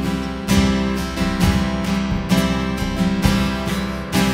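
Live worship band playing an instrumental gap between sung lines. Acoustic guitar strums held chords about once a second over sustained low notes.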